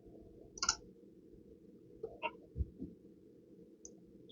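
A quiet pause with only a few faint, brief sounds: a short hiss like a breath about a second in, then a handful of soft clicks and taps a couple of seconds later.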